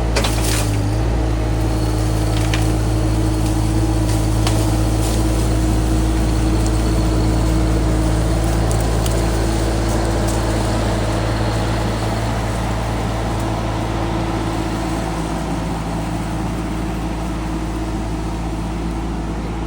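Case TL100 mini skid steer's engine running steadily under throttle, with a few light clicks and knocks in the first few seconds.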